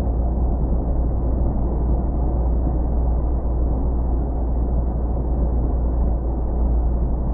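Steady low rumble of a car on the move: engine and road noise with no changes in pitch.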